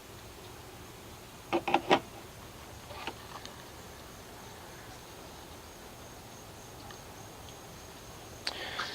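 Three sharp knocks in quick succession about a second and a half in, a softer click a second later and a few light clicks near the end, over a faint steady hum.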